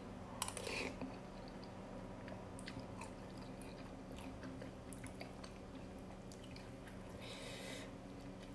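A person eating instant noodles close to the microphone: a short slurp as a spoonful of noodles goes into the mouth about half a second in, then soft wet chewing with scattered small clicks of a metal spoon and chopsticks.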